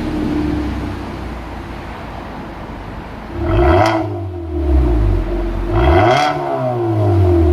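Hyundai Sonata New Rise with an aftermarket dual variable-valve exhaust, idling steadily and then revved twice in quick blips: the pitch climbs sharply about three and a half seconds in and again around six seconds in, each rev dropping quickly back toward idle.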